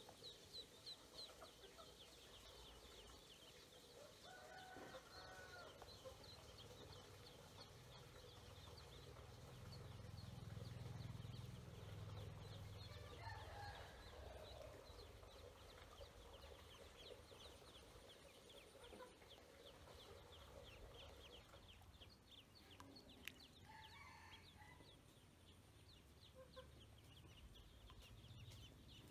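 Ducklings peeping softly and continuously in quick high chirps, with a few lower calls now and then.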